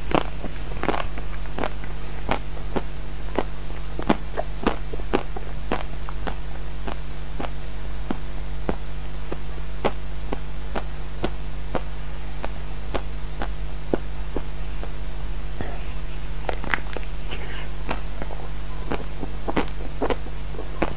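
Close-miked eating of a chocolate-coated ice cream bar: sharp, irregular bite and mouth clicks about one or two a second, with denser crackly clusters as the chocolate shell is bitten, over a steady low hum.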